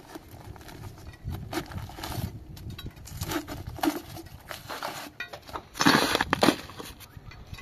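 Steel bar jabbing and scraping into broken concrete, knocking and crunching loose rubble with irregular strikes. The loudest run of strikes comes a little before the end.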